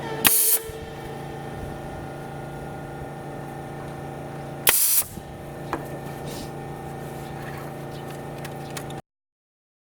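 Pneumatic air tacker (staple gun) firing twice, about four and a half seconds apart; each shot is a sharp, short blast of exhausting air.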